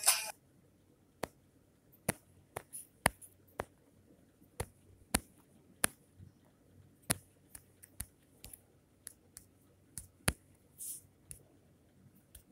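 Fingertip taps on a phone touchscreen: light, irregular clicks, about one every half second to second, with a short swish of a finger sliding across the glass just before 11 seconds. The tail of a song cuts off right at the start.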